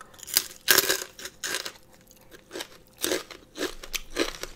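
Chewing a mouthful of crunchy pork: a series of separate crisp crunches, the loudest about a second in.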